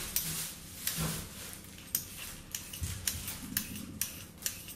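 Hand vegetable peeler scraping the skin off a sweet potato in a series of short, quick strokes, roughly two a second and unevenly spaced.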